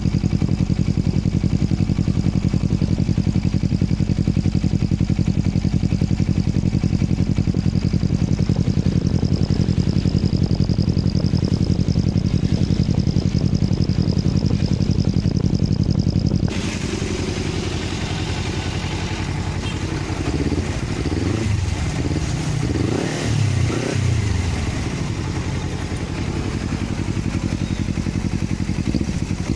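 Motorcycle engine with a turbo whistler in its exhaust, idling steadily with a faint high whistle over it. About sixteen seconds in the sound cuts abruptly to another take, where the engine is revved up and down several times.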